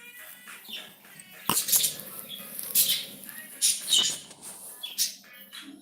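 Pet cockatiel calling with a string of sharp, high chirps and squawks, the loudest of them about a second and a half in and again around three, four and five seconds.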